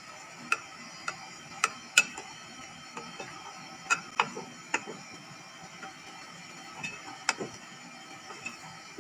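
Wooden spatula knocking and scraping against a metal pot while stirring a thick, lumpy flour-and-broth gravy to break up the lumps. It makes sharp, irregular clicks, loudest about two seconds in, near four seconds and around seven seconds, over a faint steady hiss.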